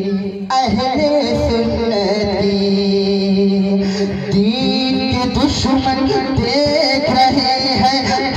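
Male voice singing a naat into a microphone, holding one long drawn-out note, then moving through changing pitches about four seconds in, over a rhythmic beat.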